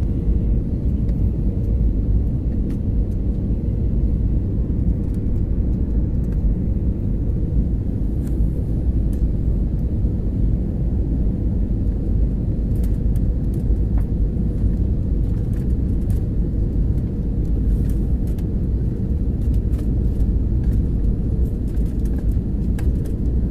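Steady low rumble of engine and airflow noise heard inside a jet airliner's cabin on final approach, with a faint steady hum above it.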